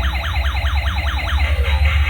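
Fast warbling electronic siren, sweeping up and down about six times a second over background music with a heavy beat; the siren fades out near the end.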